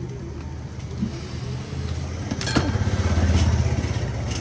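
A low engine rumble that grows louder to a peak about three seconds in and then eases, like a motor vehicle passing, with a single sharp clack about two and a half seconds in.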